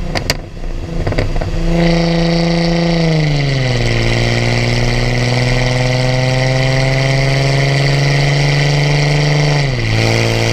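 Straight-piped exhaust of a Chrysler Crossfire SRT-6's supercharged V6: a couple of sharp crackles at the start, then a steady loud drone from about two seconds in. The drone drops in pitch about three seconds in, holds nearly level with a slight rise, and drops again near the end, with a steady high whine alongside.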